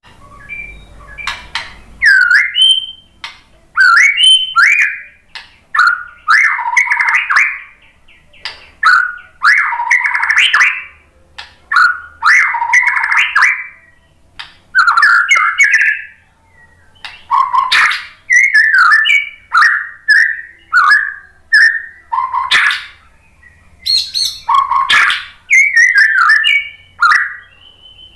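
Male white-rumped shama (murai batu) in full song: a fast, varied run of clear whistled notes and quick rising and falling sweeps, broken several times by a second or so of harsh, rasping chatter. The song is packed with the mimicked 'isian' phrases that murai batu keepers prize.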